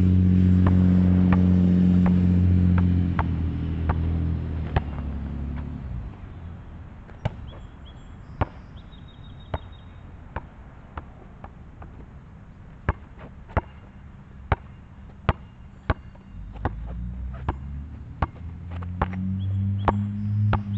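A basketball bouncing on an outdoor asphalt court as it is dribbled, sharp bounces coming about once or twice a second. A low sustained drone is loudest over the first few seconds, fades out, and comes back near the end.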